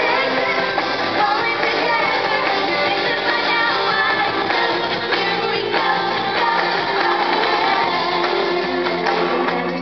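Live pop-rock music played loud: a female lead singer over a band with electric guitar, recorded from among the audience.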